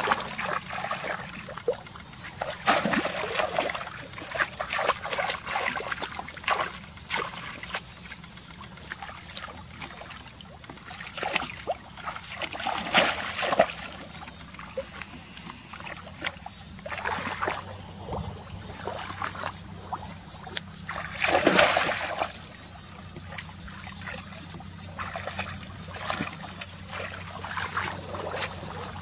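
Water splashing and trickling in irregular bursts, as if a fishing net were being worked in water, with a louder splash about halfway through and another about three-quarters through.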